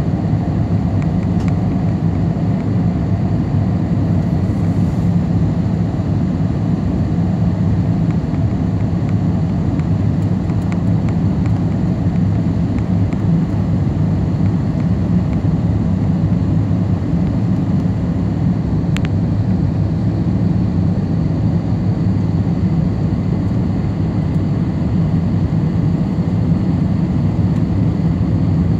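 Steady, loud cabin noise of an airliner in flight: its jet engines and the rushing airflow, heard from a window seat while the plane descends on approach. One faint click comes about two-thirds of the way through.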